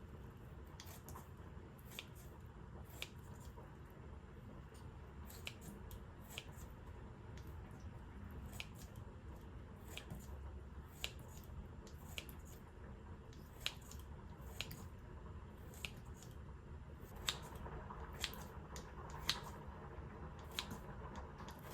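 Light, sharp clicks and taps of kitchen utensils during food preparation, coming irregularly about once a second over a low steady hum, with some soft rustling toward the end.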